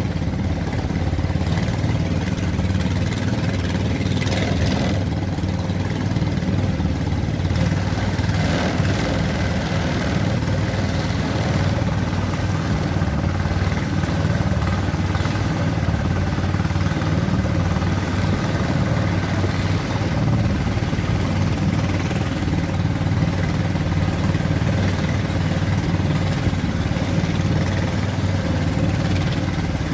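A wooden river boat's engine running steadily underway, an even, unchanging low-pitched hum.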